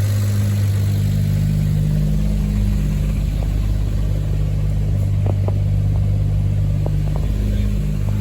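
Turbocharged Toyota 2JZ-GE VVT-i straight-six idling steadily, with a few light ticks in the second half.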